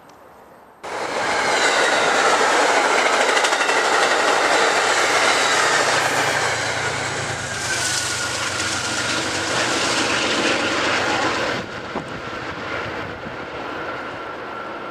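Metro-North push-pull passenger train passing close by at speed, wheels clattering over the rails, with its GE P32AC-DM diesel locomotive's engine humming as it goes by. The noise starts suddenly about a second in and drops abruptly to a quieter rumble a few seconds before the end as the train recedes.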